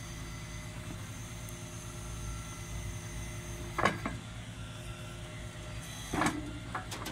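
Boom truck's engine and hydraulics running steadily while its pallet fork is drawn out from under a bundle of wooden I-joists, with two short scraping knocks of the fork against the load, about four and six seconds in.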